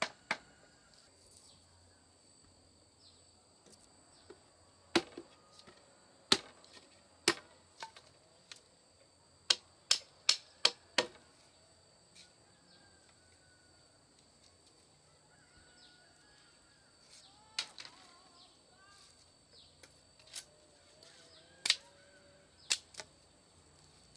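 Machete chopping bamboo: scattered sharp strikes, with a quick run of five about ten seconds in and a few more near the end. Under them is a steady high insect drone.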